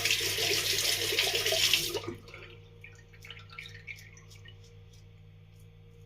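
Tap running into a sink, shut off about two seconds in, then a few faint small clicks and taps.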